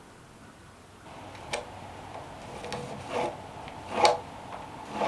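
About five irregular clicks and knocks from hand tools being handled against wood, the loudest about four seconds in, over a low rubbing hiss that starts about a second in.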